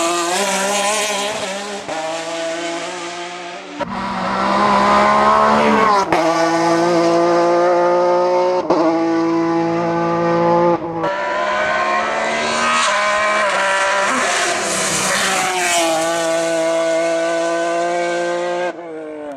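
Naturally aspirated 2.0-litre V6 of a Ford Mondeo STW touring car running at high revs under full load. The engine note is broken by brief cuts at gear changes about four or five times, and a louder stretch starts about four seconds in.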